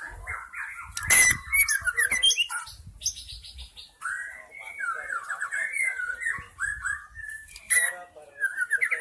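White-rumped shama singing: quick, varied phrases of whistles and chattering notes, with short pauses between bursts.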